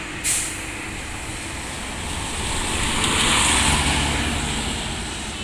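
A road vehicle passing close by, its noise swelling to a peak about three and a half seconds in and then fading. A short sharp burst of noise comes just after the start.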